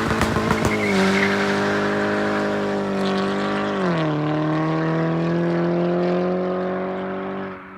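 Mk6 Golf GTI's turbocharged 2.0-litre four-cylinder, fitted with a catback exhaust and a catless, resonator-less downpipe, running at high, steady revs with a few crackles in the first second. The pitch steps down about four seconds in, and the sound fades out near the end.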